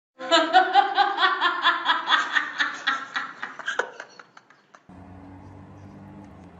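A person laughing in a quick run of rhythmic ha-ha pulses, about five a second, tailing off after about four seconds; a faint low steady hum follows.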